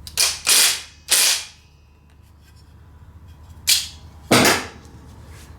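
Cordless impact driver run in reverse in short bursts, its hammer rattling against a seized bit held in vice grips: three quick bursts, a pause, then two more. The bit stays stuck in the anvil.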